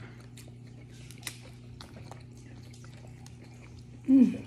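Eating sounds: small clicks and cracks of Dungeness crab shell being picked apart, and mouth sounds, over a steady low hum. About four seconds in, a short, loud sound from a mouth falls in pitch.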